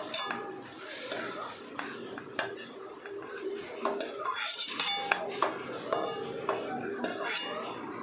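Steel ladle scraping and clinking against a non-stick kadhai while stirring in a little ghee. There are sharper metallic clinks about halfway through and again near the end.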